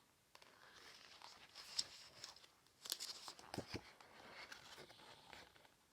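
Faint rustling and handling noise with a few light clicks.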